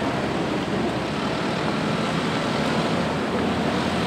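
Steady street traffic noise, an even rush with no single distinct event standing out.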